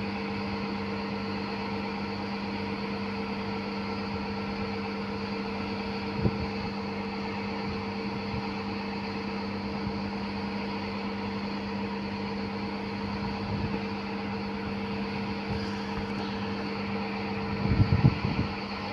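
Truck crane's diesel engine running steadily, a constant hum that does not change in pitch. A short knock about six seconds in and a few low thumps near the end.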